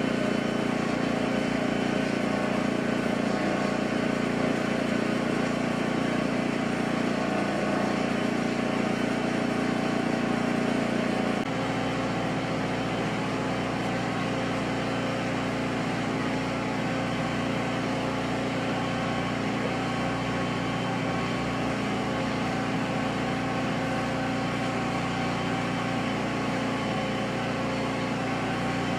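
A machine running steadily with an even, humming drone, its tone changing abruptly about eleven seconds in.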